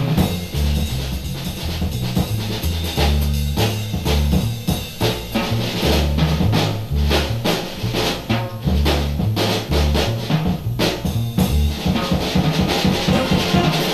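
Theme music for a TV title sequence: a drum-kit beat with bass drum and snare hits over a low, blocky bass line.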